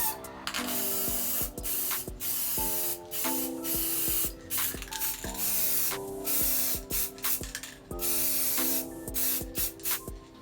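Spray paint hissing out in repeated bursts lasting one to a few seconds each, with brief pauses between them, over background music.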